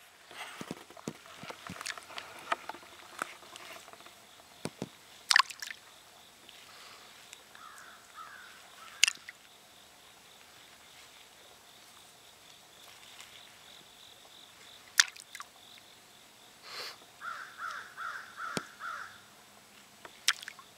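Small stones clicking and clacking on a pebble beach and plopping into shallow lake water as a small child picks them up and tosses them, with sharp clacks about five, nine and fifteen seconds in. A quick run of about seven short calls comes near the end, over a faint steady insect whine.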